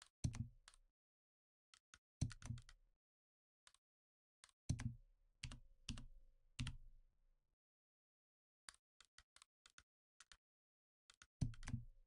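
Computer keyboard and mouse clicks in irregular clusters, several heavier keystrokes with a low thump among lighter ticks, with silent gaps between.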